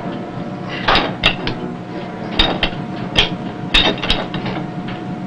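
Submarine torpedo-reload gear being worked by hand: irregular sharp metallic clanks and knocks, about eight in five seconds, over a steady machinery hum.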